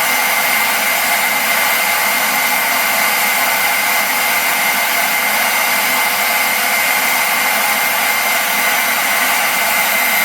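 Vacuum cleaner running steadily with a constant high whine, its suction drawing a thread through a tube routed inside a bicycle frame.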